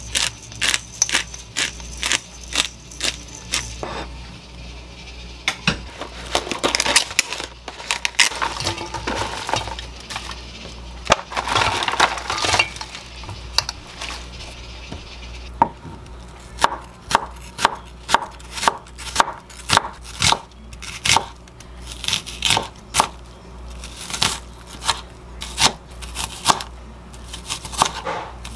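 Kitchen prep sounds: clinks and handling noises at first, then a chef's knife chopping onion on a wooden cutting board, a steady run of knocks about two a second through the second half.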